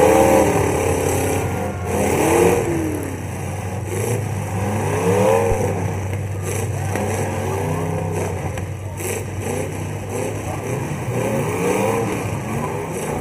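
Engines of several full-size demolition derby cars revving up and down over one another, with an occasional knock of a hit.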